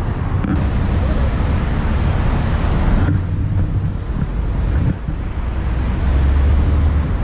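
Wind buffeting the microphone of a pole-mounted camera during an electric unicycle ride: a steady, heavy low rumble, with road traffic noise mixed in.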